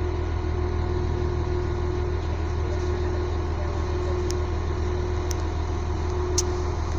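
Passenger train rolling slowly, heard from inside the carriage: a steady low rumble with a constant hum, and three faint ticks in the second half.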